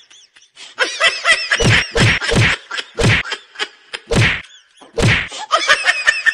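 A rapid, irregular series of loud slapstick whack sound effects, about seven hits, over high-pitched squealing laughter.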